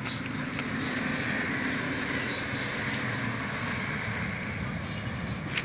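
A motor engine running steadily, with a single light click about half a second in.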